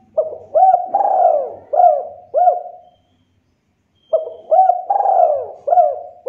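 Spotted dove (tekukur) cooing: two phrases of several low, hooked coo notes, the second beginning about a second after the first ends.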